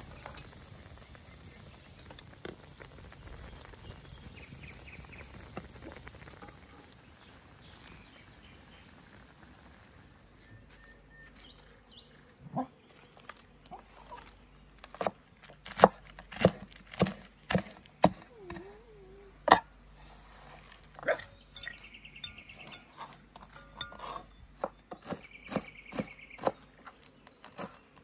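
A pan of stuffed eggplants and tomatoes sizzles softly over charcoal for about ten seconds. Then a knife chops leafy greens on a wooden cutting board in sharp, irregular chops, about one or two a second.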